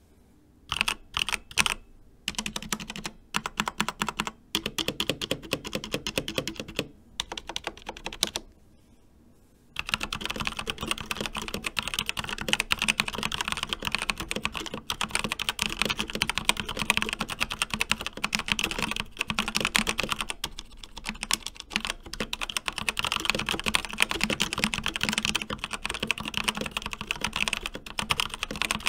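Typing on an Endorfy Thock TKL mechanical keyboard with Kailh Red linear switches. A few single keystrokes, then bursts of typing with brief pauses, then steady fast typing from about ten seconds in.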